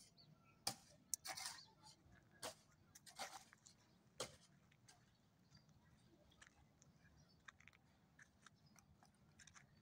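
Near-quiet with faint scattered crunching scrapes and clicks: several sharper ones in the first four seconds, then fainter ticks.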